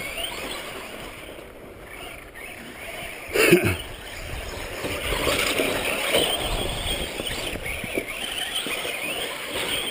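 Radio-controlled short-course trucks racing on a dirt track: a wavering motor whine that rises and falls with the throttle, over the noise of the tires on dirt. A short falling-pitch sound cuts in about three and a half seconds in.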